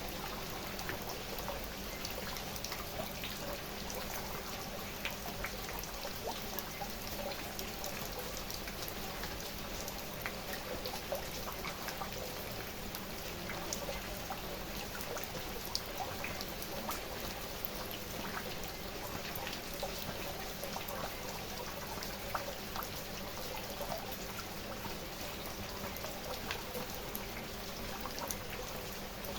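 Steady rain falling, with many separate drops ticking and pattering on a surface over an even hiss.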